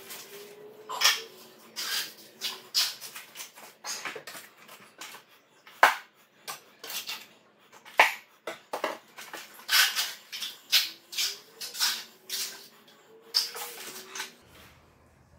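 Repeated short scrapes and knocks of a steel trowel working a patch of wet concrete on a floor being levelled.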